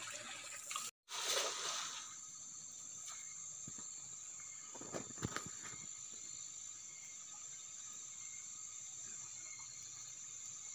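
Insects chirring steadily in the forest at the river's edge, a continuous high-pitched drone. A few soft knocks sound about five seconds in.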